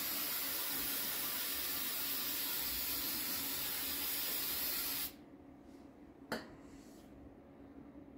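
Aerosol can of brake cleaner spraying in a steady hiss onto brake-pad retaining pins. It cuts off suddenly about five seconds in, and a single brief click follows a second or so later.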